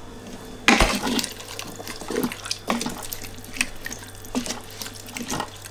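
A spoon stirring meat, onions and carrots in freshly added water in a hot cooking pot: liquid sloshing with scattered light scrapes and clicks, and a sharper knock against the pot just under a second in.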